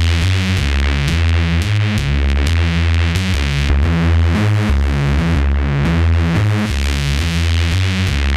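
Electronic synth bassline of the neuro-bass kind, played through heavy over-the-top (OTT) multiband compression that squashes it hard. It plays continuously in a repeating pattern of changing notes, with a strong bass and a dense, bright upper range.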